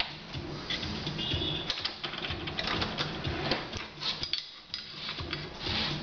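Hand work at a workbench: repeated clicks, knocks and scrapes of metal tubing and a wooden bending jig being handled and set in a vise, over background music.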